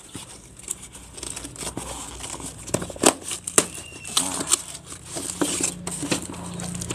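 Snap-off utility knife cutting and scraping at a parcel's packing tape and cardboard, with crinkling of the wrapping and irregular sharp clicks and snaps.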